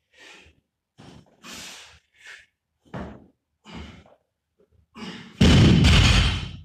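Hard breathing and forceful exhales during a barbell clean and jerk, then about five seconds in the barbell loaded with bumper plates (84 kg) is dropped onto the rubber gym floor: a loud slam that bounces and rattles for about a second.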